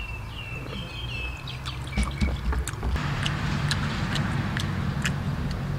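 Sharp clicks of snail shells being handled and knocked together while the snails are eaten. A bird chirps during the first two seconds, and a motor vehicle's engine hums from about halfway.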